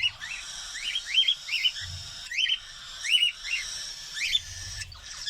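Cockatiels chirping while a parent feeds its chick: short rising chirps, often two or three in quick succession, repeated about every second, with a few faint low thumps.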